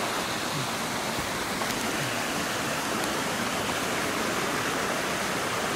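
Steady, even rushing noise.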